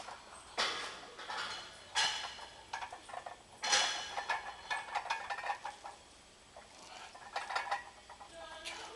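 Metallic clanks and rattles from iron weight plates on a loaded barbell as it rides through squat reps. Three louder clanks come in the first four seconds, then lighter clatter.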